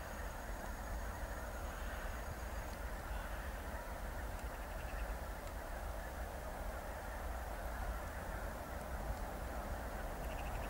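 A large flock of geese calling all at once, a continuous distant din of many overlapping honks, with a low wind rumble underneath.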